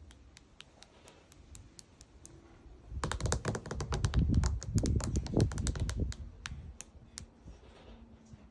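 A run of small sharp clicks and taps. They are sparse at first, come in a dense flurry with some dull low knocks for about three seconds midway, then thin out again.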